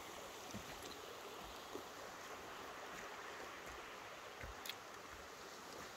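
Faint steady outdoor hiss with a few soft, irregular thumps of footsteps on a dirt forest trail.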